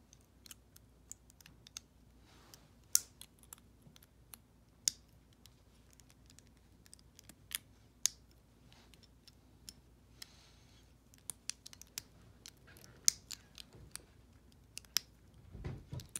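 LEGO Bionicle plastic parts clicking and snapping as they are handled and pressed together by hand: irregular sharp clicks, some in quick clusters, with a brief rustle of handling about ten seconds in.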